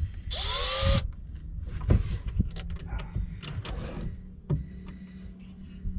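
A cordless drill/driver runs in one short burst, about a second in, with a whining motor, as a fastener is driven during the strap mounting. A few knocks and clatters of handled parts follow.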